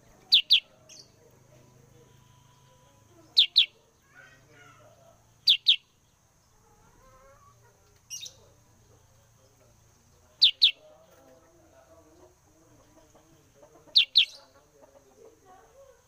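Caged kutilang sutra (a bulbul) calling in quick double chirps, each pair dropping in pitch, five times at intervals of about two to four seconds, with one weaker call in between.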